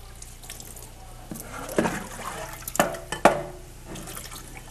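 Dishes and cutlery clinking: a few sharp knocks with short ringing, the loudest about three seconds in.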